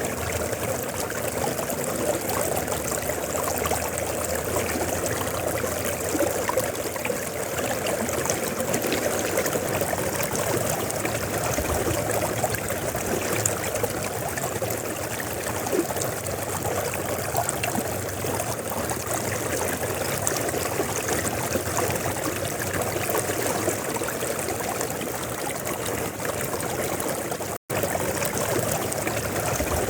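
River water flowing and trickling steadily, with a split-second dropout near the end.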